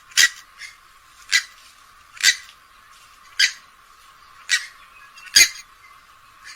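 Swamphen (kalim) giving a series of six short, sharp calls, about one a second.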